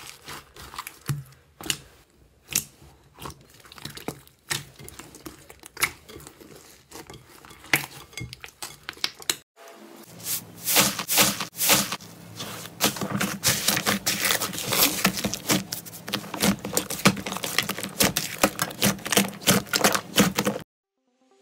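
Hands squeezing and pressing slime, making sticky clicks and pops. After a cut about halfway through, the popping from a bubbly, foamy slime becomes dense and rapid, then stops suddenly near the end.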